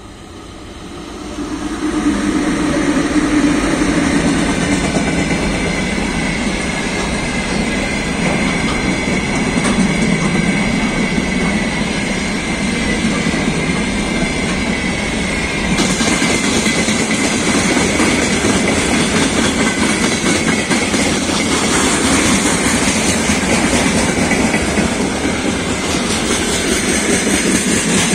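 VL11.8 two-section DC electric freight locomotive passing close, growing loud about two seconds in, followed by a long string of freight wagons (gondolas and hopper cars) rolling by with steady wheel-on-rail noise and clacking. A thin high tone runs under the rolling noise.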